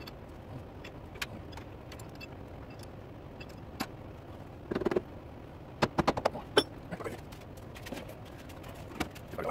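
Scattered metal clicks and clinks as the tool post and tooling of a metal lathe are handled, with a cluster of louder knocks around the middle, over a steady low hum.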